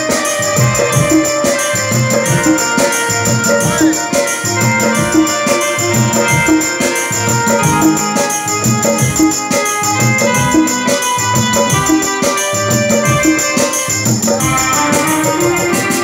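Music with a keyboard or organ melody over a steady, fast beat with shaker-like percussion.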